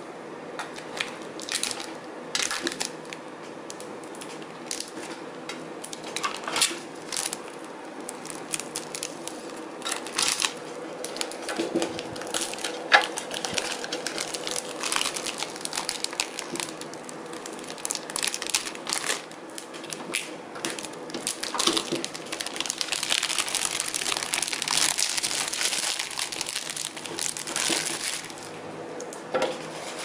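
Clear protective plastic film crinkling and crackling as it is peeled off a PC case's see-through side panel, in irregular crackles that grow denser and louder in the second half.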